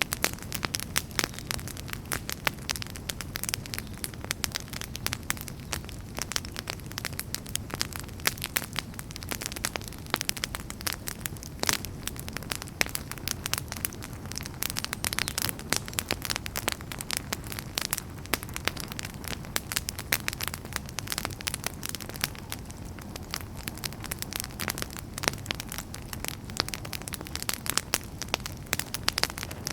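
Outdoor wood campfire crackling: a dense, irregular run of sharp pops and snaps over a steady low rumble of burning.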